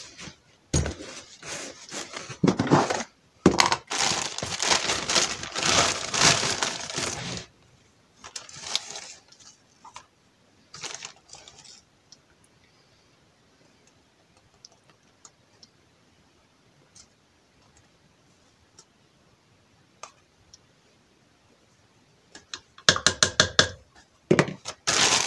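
A small plastic measuring cup scooping dry wheat semolina and pouring it into a plastic bag: rustling and pouring with light plastic clicks for the first several seconds, a quiet stretch with a few faint ticks, then more clattering and rustling near the end.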